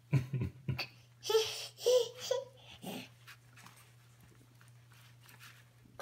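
A toddler making several short, high-pitched wordless squeals and little voiced sounds, bunched in the first three seconds.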